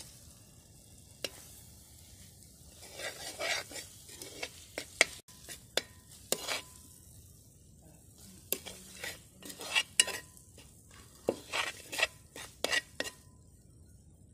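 A long metal spoon scraping and knocking against the inside of a large aluminium pot while stirring a thick jackfruit-jaggery mixture as rice flour is tipped in. The scrapes and clinks come irregularly, thickest from about three seconds in until near the end.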